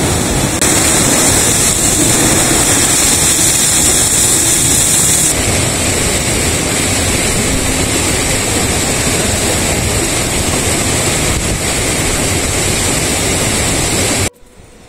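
Steady, loud rush of water, a mountain river or waterfall, that cuts off suddenly near the end.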